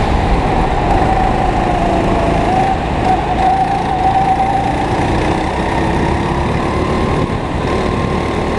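Go-kart engine running at fairly steady revs while lapping, its pitch wavering slightly up and down.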